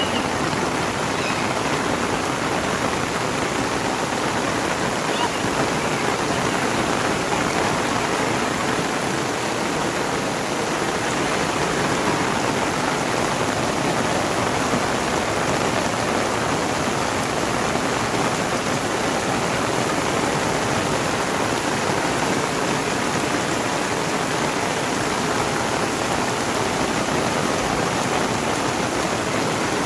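Heavy rain pouring down steadily, an even, unbroken hiss of downpour.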